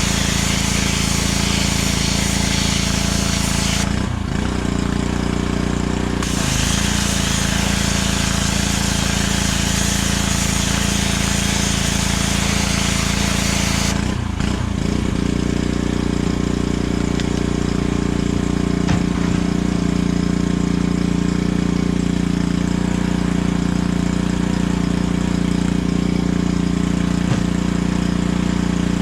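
Pressure washer engine running steadily with the hiss of a high-pressure water-and-sand slurry spray from the blasting nozzle. The spray stops for about two seconds around four seconds in, comes back, then cuts off about halfway through, leaving the engine running on its own.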